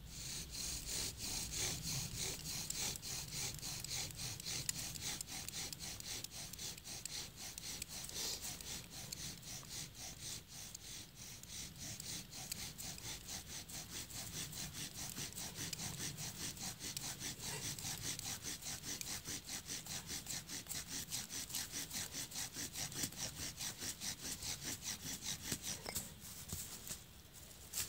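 Bow drill friction fire-lighting: a wooden spindle spun by a paracord bow grinds against a notched wooden hearth board, rasping in a quick, steady rhythm with every back-and-forth stroke. Smoke rising from the notch shows the spindle is grinding out hot dust to form an ember. The bowing stops about a second before the end.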